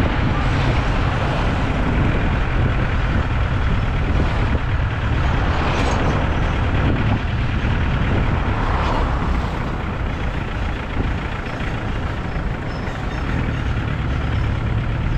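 Motor vehicle driving in city traffic: a steady low rumble of engine and road noise, with brief swells of louder traffic noise about six and nine seconds in.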